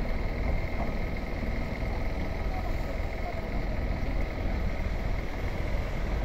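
Steady street noise with a low rumble, as a Sapporo Class 210 streetcar, a nose-suspended-motor tram, pulls away into the distance.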